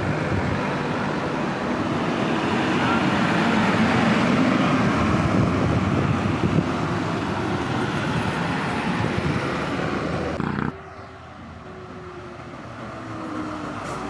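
Heavy truck engine and tyre noise passing close by, swelling to its loudest a few seconds in. It cuts off abruptly about eleven seconds in, leaving quieter road traffic noise that slowly builds again as another vehicle approaches.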